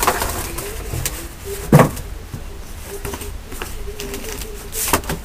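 Cardboard Kindle packaging being handled: knocks and scrapes, with a loud knock about two seconds in and another near the end.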